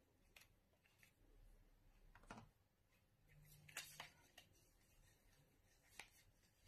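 Faint, scattered clicks and rustles of a phone and its packaging being handled, a few seconds apart.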